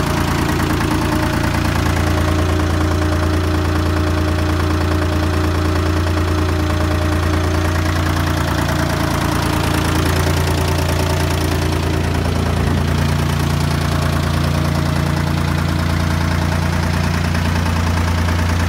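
Slanzi DVA 1550 three-cylinder air-cooled diesel engine in a Staub GM440 tractor idling steadily, freshly rebuilt with new big-end bearings, rings, honed cylinders and a full gasket set.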